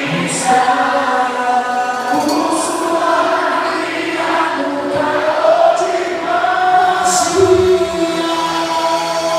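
Music with a choir of voices singing long held notes that glide from one pitch to the next.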